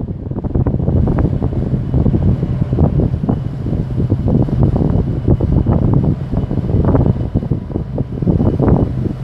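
Wind buffeting the microphone: a loud, irregular, gusting rumble.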